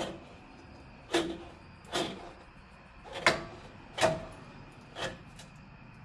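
Five sharp metal knocks about a second apart, one ringing briefly: a 2008 Jeep Wrangler JK front coil spring being worked by hand and turned into its seat on the axle.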